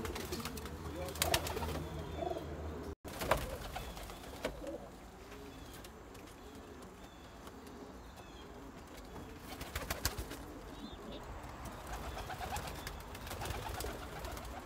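Domestic pigeons cooing steadily in a loft, with a few sharp clacks here and there.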